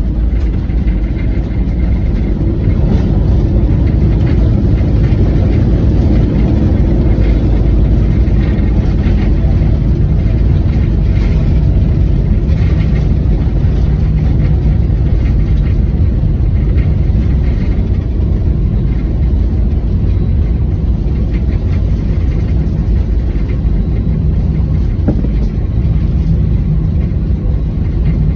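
Loud, steady low rumble of an Airbus A320-200 around its landing, heard from inside the passenger cabin. It swells slightly in the first few seconds and then holds.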